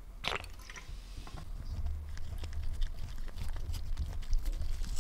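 Gloved fingers handling a miniature brass lighter at close range: a short scrape about a third of a second in, then many small metal clicks and the rubbing of rubber gloves.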